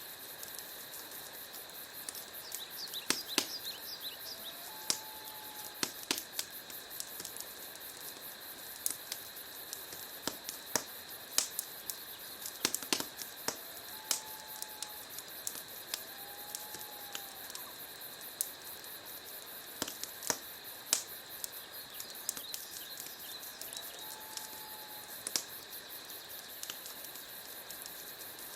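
Wood logs burning in a fireplace, crackling and popping at irregular intervals over a steady hiss. A few brief, faint whistles are heard now and then.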